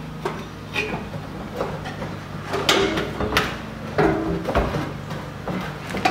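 Irregular metal clunks and scrapes from a Porsche 911 (997) rear muffler being worked off its pipe clamp and pulled out through the wheel well, some knocks ringing briefly, the loudest a little past halfway. A steady low hum runs underneath.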